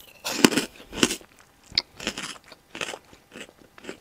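Crunching and chewing of freeze-dried cotton candy Peeps, brittle and hard like styrofoam. Irregular crunches come about twice a second, loudest near the start and softer toward the end.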